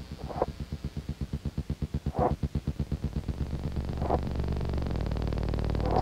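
Electronic drone/noise music from no-input-mixing samples played through the Noises and Bento Noise Box apps, with a light tape effect. Rapid, even low pulses crowd together and settle into a steady low drone about halfway through, while a short mid-pitched blip comes back about every two seconds.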